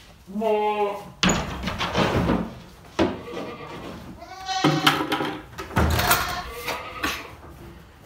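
Boer goats bleating: a quavering call early on, a second rising call about halfway through, and fainter calls after it. Several sharp knocks and clatters come between the calls.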